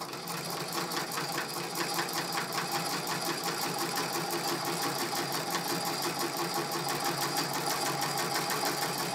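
Singer 127 treadle sewing machine (a vibrating-shuttle machine) stitching through a quilt: a rapid, even ticking of needle strokes that builds up over the first couple of seconds and then runs steadily. The well-oiled machine runs smoothly and quietly.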